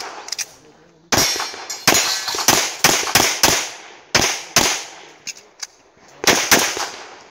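Pistol shots fired rapidly in quick pairs, about ten in all. After a gap of about a second and a half there is a final pair near the end.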